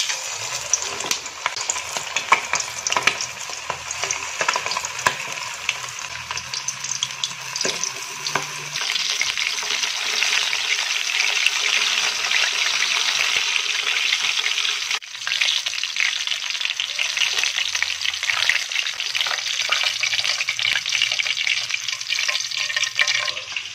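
Flour-coated chicken pieces deep-frying in hot oil in a pan: steady sizzling and crackling, louder from about nine seconds in, with a brief dip about fifteen seconds in.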